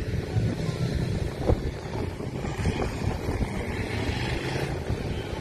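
Distant mud-bog truck engine running low and steady, with wind on the microphone.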